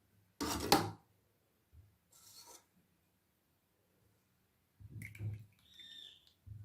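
Kitchen utensils scraping and knocking as thickened milk mixture is spooned into kulfi moulds: a short loud scrape about half a second in, a fainter one around two seconds, and more scraping and clatter near the end.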